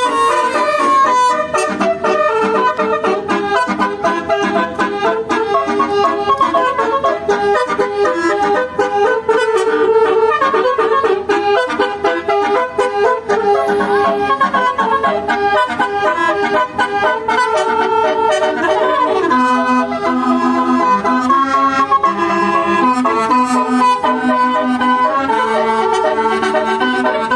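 A telolet basuri bus horn, a set of tuned air horns, playing a long melody. It sounds several held notes at once and steps quickly from one to the next, and a lower line of notes joins about two-thirds of the way through.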